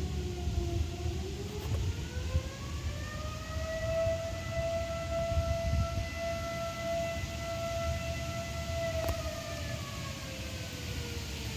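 Air raid siren winding up from a low pitch to a steady high wail, holding it for several seconds, then winding back down near the end. A low rumble runs underneath.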